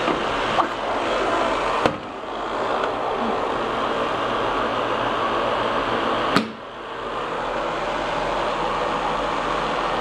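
Canister vacuum cleaner running with a steady rushing noise. Two sharp knocks come about two seconds in and just past six seconds in, each followed by a brief dip in the noise.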